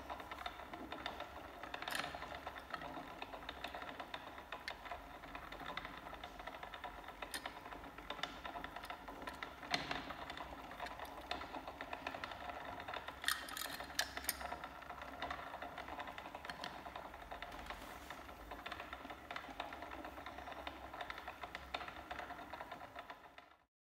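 Small electric motor of a rotating display turntable whirring steadily, with scattered light clicks and taps as the diecast van is handled and picked up; the sound cuts off just before the end.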